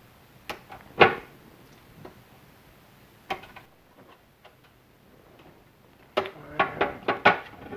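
Diagonal cutters snipping plastic zip ties: a few sharp clicks over the first three and a half seconds, the loudest about a second in, then faint ticks and rustling as the wiring and the BMS board are handled.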